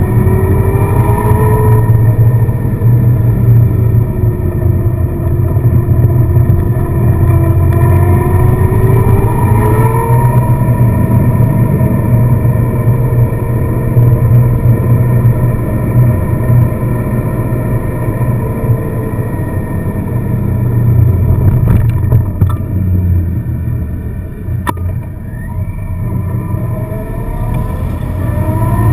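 Car engine and road rumble while driving. The engine note rises and falls with throttle and gear changes, easing off for a few seconds past the middle.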